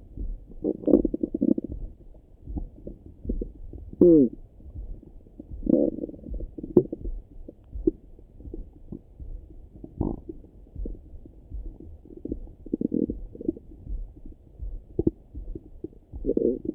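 Stomach and bowel sounds heard through a Littmann stethoscope: irregular gurgling rumbles and short pops, muffled and deep. About four seconds in, a squeaky gurgle falls in pitch.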